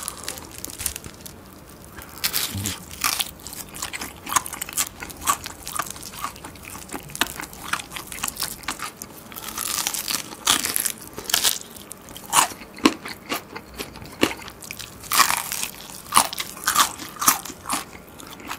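Crispy Korean market-style whole fried chicken being bitten and chewed close to the microphone. Its crust gives many sharp crunches one after another.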